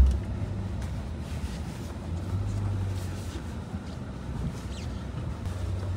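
In-cabin rumble of a Skoda Kodiaq 4x4 with a 2.0-litre petrol engine driving over a dirt off-road track on light throttle: a steady low engine and tyre drone that swells a little a couple of seconds in. It opens with a low thump.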